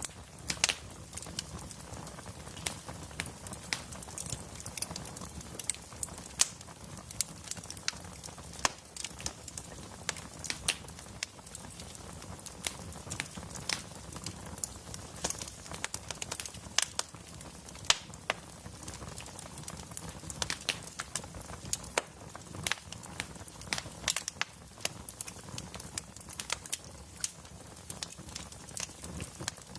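Wood fire crackling in a fireplace: frequent irregular sharp pops and snaps from the burning logs over a steady low rumble of the flames.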